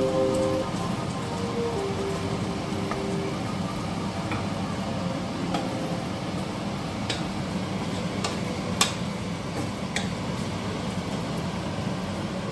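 Ground beef sizzling steadily as it browns in a stainless steel saucepan, stirred with a wooden spatula that gives a few sharp clicks against the pan.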